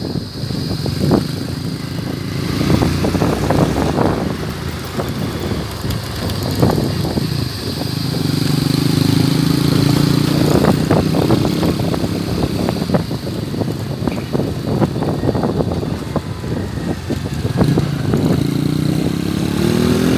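Motorcycle engine running while riding over a bumpy dirt track, with frequent knocks and rattles from the bumps. Near the end the engine speeds up and its pitch rises.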